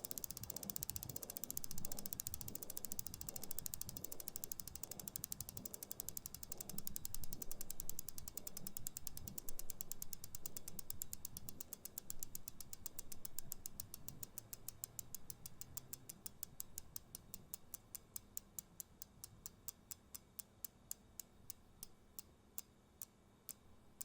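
Bicycle freewheel pawls clicking as the spinning rear wheel coasts down. A fast rattle of clicks slows steadily into separate ticks, about two a second near the end. Through the first half a low whirr from the wheel pulses about twice a second.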